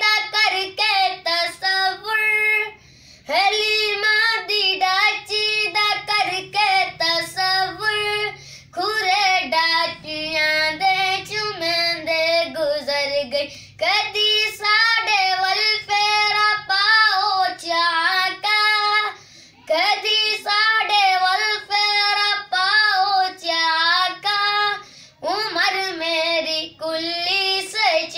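A boy singing a Punjabi naat solo, in long melodic phrases with short breaks for breath about every five to six seconds.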